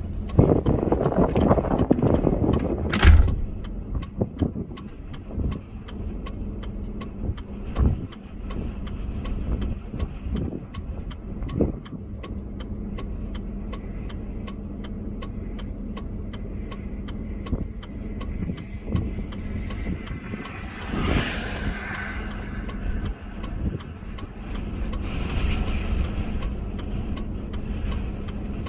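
A vehicle's engine running, with a loud rush of noise for the first few seconds that ends in a sharp thump about three seconds in. After that comes a steady low hum with a fast, regular ticking.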